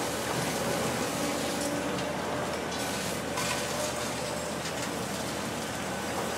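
High-reach demolition excavator running steadily while its jaws break into a concrete building, with a couple of faint cracks along the way.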